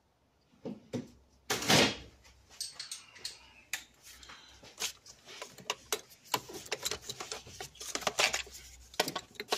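Irregular clicks, clinks and rustling of hands and a socket tool working among engine-bay hoses, with a louder rustle about a second and a half in.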